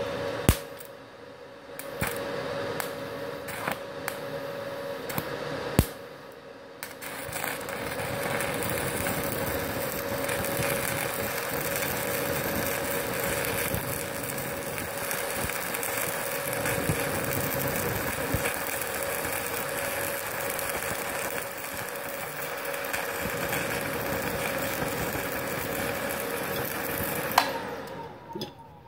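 Stick (MMA) welding arc from a Multipro MMA 160 G-KRK inverter welder set to 45 amps. It starts with a few sharp ticks and short bursts as the arc is struck, then runs as a steady crackling hiss for about twenty seconds and stops near the end. The arc holds on a 900-watt household supply without tripping the breaker.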